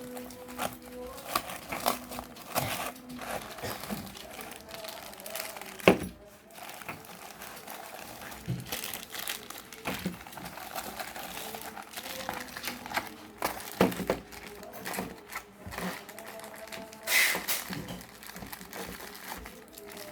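Packaging crinkling and rustling as it is handled and opened, with scattered small clicks and knocks; a sharp knock about six seconds in is the loudest.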